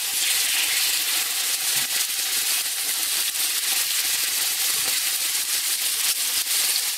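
Raw chicken pieces sizzling in a frying pan of a little hot oil: a steady hiss with frequent small crackles and spits.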